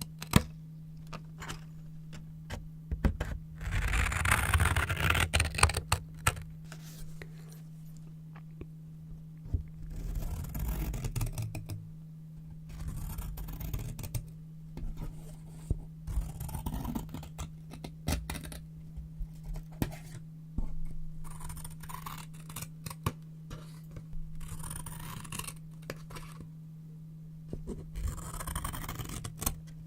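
Brown paper being rustled, scraped and cut with scissors close to the microphone. It comes in separate bursts of crinkling and snipping with sharp clicks, with short pauses between them.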